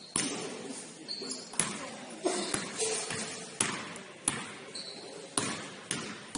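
Basketball bouncing on a hardwood gym floor: about eight sharp thuds at uneven intervals, each echoing in the large hall.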